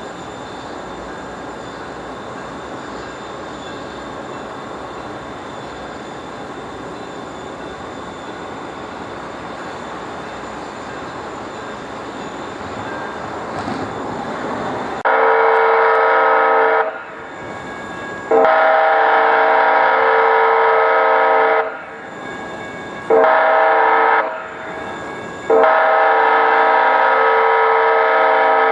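DCTA A-Train diesel railcar (Stadler GTW) nearing a road crossing: a steady rumble builds, then its horn sounds four loud, steady, multi-toned blasts in the grade-crossing warning pattern of long, long, short, long. The last blast is still sounding at the end.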